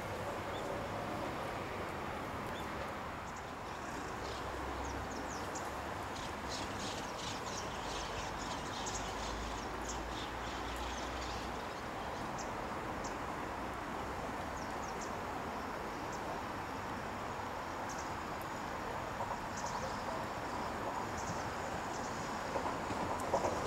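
Steady outdoor background hum with scattered short, high chirps or ticks. Near the end the rumble of an approaching train begins to rise.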